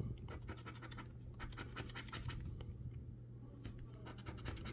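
A metal dog tag scratching the coating off a scratch-off lottery ticket: quick runs of rapid strokes, with a short pause about three-quarters of the way through.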